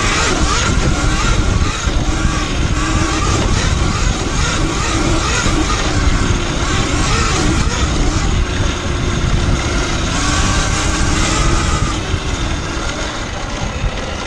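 Talaria Sting electric dirt bike being ridden along a dirt trail: heavy wind rush on the microphone and tyres on dirt, with the electric motor's whine rising and falling in pitch as the speed changes.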